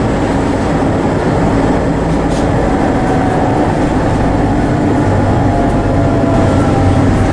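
Tatra T6A5 tram running along the track, heard from inside the passenger saloon: a steady rumble of wheels on rail and traction equipment.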